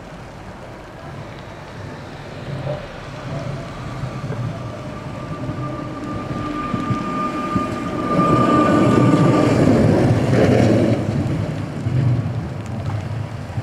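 A Sapporo streetcar approaches and runs past. A steady whine rises with it, and the running noise is loudest about eight to eleven seconds in, then eases off.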